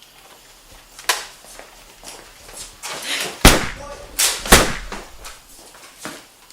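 A series of knocks and bangs. The loudest is a sharp slam, like a door banging, about three and a half seconds in, with another strong bang a second later and a lighter knock about a second in.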